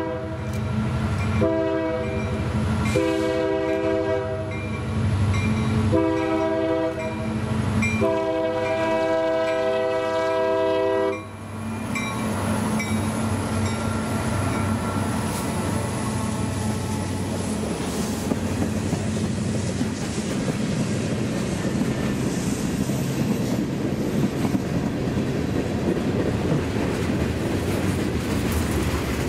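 Diesel freight locomotive's horn sounding a chord in a series of blasts, the last and longest cutting off about 11 seconds in as the locomotive reaches the camera. Then the engine and a long string of tank cars and covered hoppers roll past with steady wheel and rail noise.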